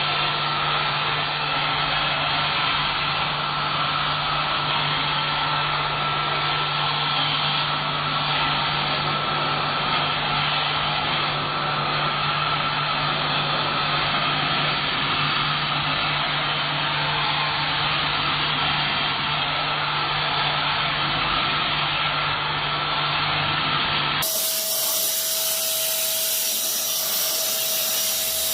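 Vacuum cleaner running steadily, a constant motor hum with a high whine. Near the end it changes abruptly to a different, lower-pitched whine.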